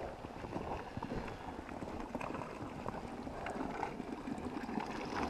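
Water running into a cattle water trough: a steady splashing rush with small knocks scattered through it.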